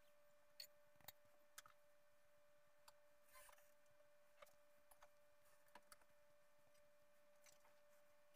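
Near silence: a faint steady tone with about a dozen faint, irregular clicks, the light taps of a fingertip on a phone touchscreen while drawing.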